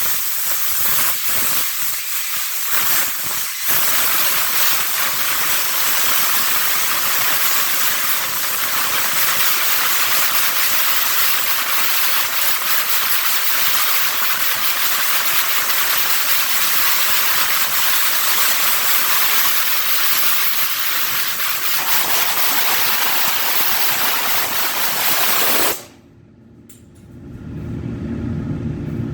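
Paint spray gun hissing steadily as it sprays primer, with a few short breaks in the first few seconds as the trigger is let off. The hiss cuts off suddenly near the end, and a low, steady rumble comes up.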